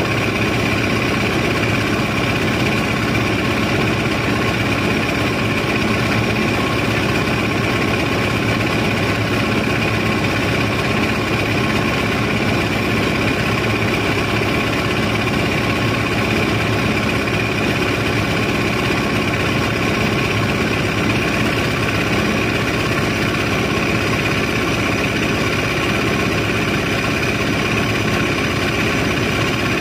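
An engine running steadily with a constant, unchanging drone: the sand barge's unloading machinery at work.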